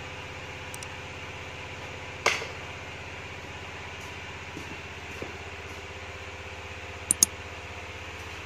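Small engine running steadily at idle with an even low pulse. A sharp metallic knock comes about two seconds in, and two quick clicks close together near the end.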